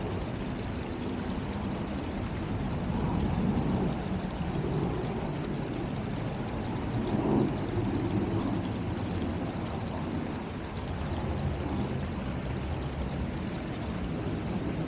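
Steady rushing of a creek running over its bed.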